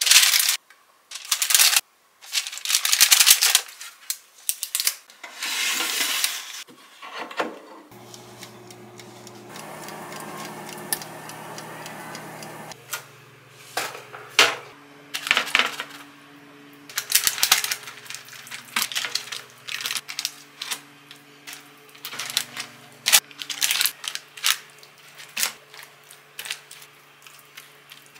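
Parchment paper rustling and crinkling as pork belly strips are laid into a paper-lined wire basket, followed by a long run of sharp clicks and taps from the wire basket and utensils as the part-cooked pork is handled and brushed with sauce.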